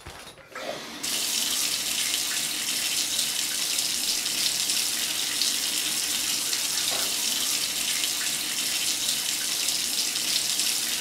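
Shower running: a steady hiss of spraying water that starts abruptly about a second in.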